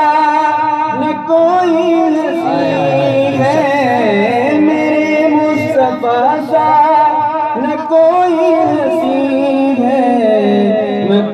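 A man singing an Urdu naat into a microphone, holding long, ornamented notes that waver up and down in pitch.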